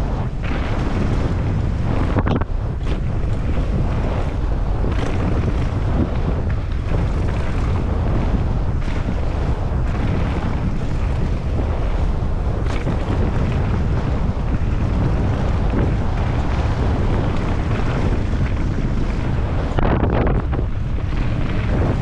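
Wind buffeting a helmet-mounted camera's microphone as a mountain bike runs fast down a dirt trail, with a few short knocks from the bike going over bumps.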